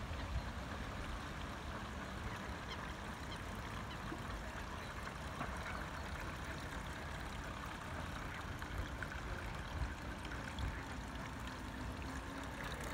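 Quiet, steady churning and splashing of a radio-controlled model paddle tug's paddle wheels turning in the water as it sails, with a faint hum from its brushed electric motors.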